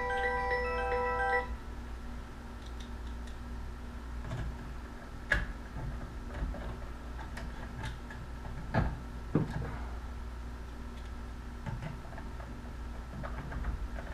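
A short chiming music cue ends about a second and a half in. Then scattered small clicks and taps of a screwdriver and screws as a replacement dimmer switch is screwed into the wall box, with a few sharper knocks about five and nine seconds in.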